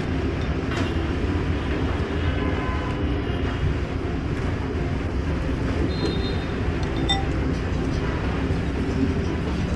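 Steady low background rumble, with a few light clinks of a metal spoon and chopsticks against a ceramic soup bowl.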